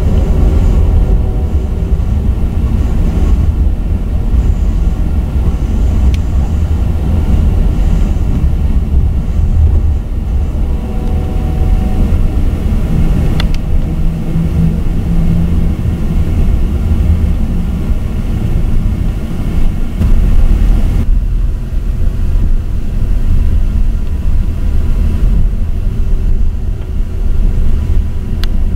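Amtrak Southwest Chief passenger train rolling at speed: a loud, steady rumble of wheels on rail, with a sharp click about halfway through and another near the end. The higher hiss drops away suddenly about three-quarters of the way through.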